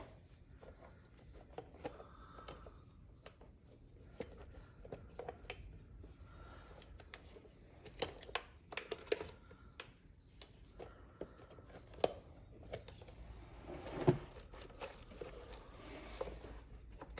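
Light scattered clicks, taps and rubbing of a replacement starter solenoid in its rubber boot being handled and slid onto its mounting pegs, with a few sharper knocks, the loudest about fourteen seconds in.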